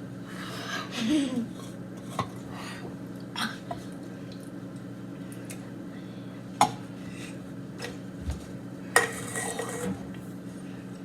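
A few sharp clinks and taps of drink containers being handled, the loudest about two-thirds of the way through and near the end, over a steady low hum. A short rising-and-falling vocal sound comes about a second in.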